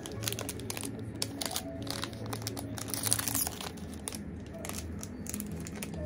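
Irregular crinkling and clicking over quiet background music.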